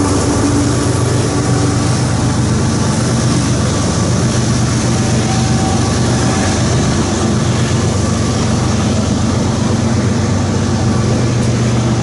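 A steady, loud low engine drone with a constant hum, unchanging throughout.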